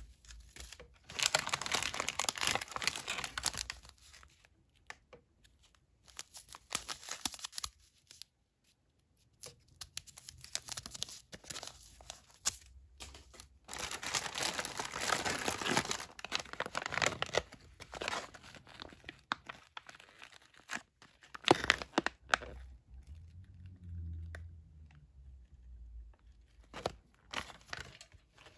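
MRE ration packaging, clear plastic bag and foil-laminate pouches, crinkling and tearing as it is handled and opened, in bursts of a few seconds with quiet gaps between. Two sharp clicks come about three-quarters of the way through.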